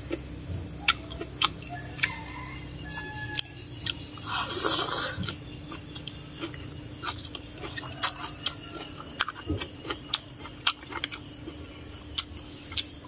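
Close-up eating sounds of a person chewing instant noodles with mustard greens: wet mouth clicks scattered throughout, with a louder slurp of noodles a little before halfway.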